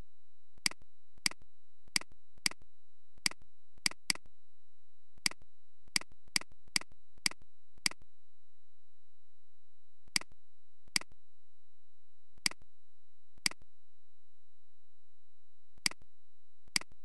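Computer mouse clicking: about nineteen sharp single clicks at irregular intervals, coming quickly over the first eight seconds and then more sparsely, over a faint steady hum.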